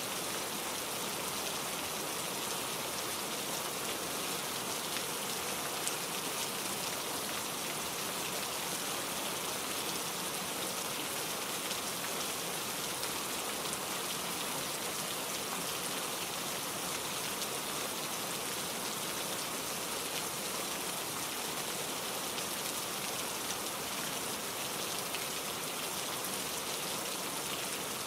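Steady rain: an even, unbroken hiss with scattered ticks of individual drops.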